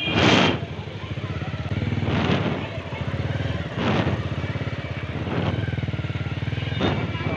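Bajaj Pulsar 150's single-cylinder engine running steadily at low speed through its stock exhaust with the dB killer fitted, an even pulsing putter, with a few short bursts of noise over it.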